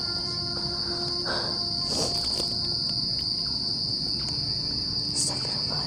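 Crickets chirring in the forest at night, one continuous high-pitched buzz that holds steady throughout.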